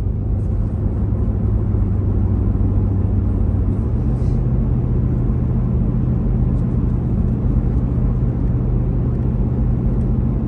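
Car engine and tyre noise heard inside the cabin while driving on a snow-covered road: a steady low drone that steps up slightly in pitch about four seconds in.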